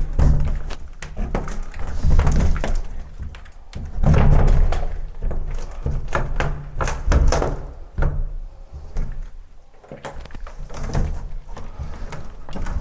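Masonry demolition: repeated knocks and thuds as an old partition wall is broken out, with chunks of debris clattering down.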